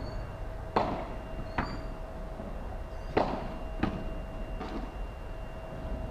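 Padel rally: the ball struck with solid padel rackets and bouncing, five sharp pops at uneven intervals over a few seconds.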